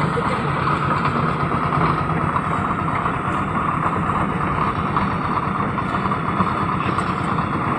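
Concrete mixer machine running steadily.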